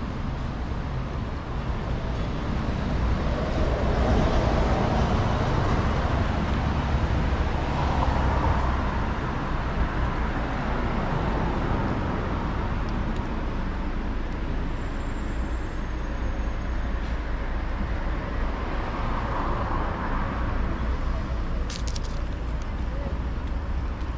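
City street traffic: a steady low rumble of road vehicles, swelling louder twice as vehicles pass.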